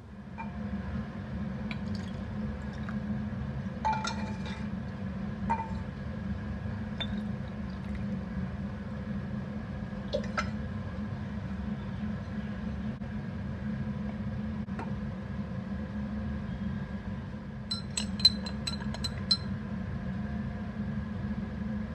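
Spoon stirring sharbat in a drinking glass, clinking rapidly against the glass about eight times near the end. A few single taps of glassware come earlier, all over a steady low hum.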